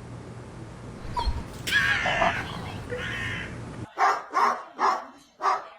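Puppy whimpering with high-pitched cries, then, after the background noise cuts off about four seconds in, four short yips about half a second apart.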